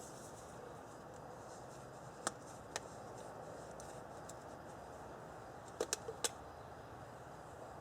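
A few light clicks and knocks from small objects being handled, one about two seconds in, another half a second later, and a quick cluster of three or four near six seconds, over a faint steady hiss.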